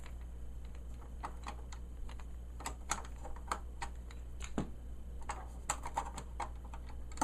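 Light, irregular clicks and taps of hands handling the plastic back of a flat-screen TV and its small parts, coming more often after the first couple of seconds, over a steady low hum.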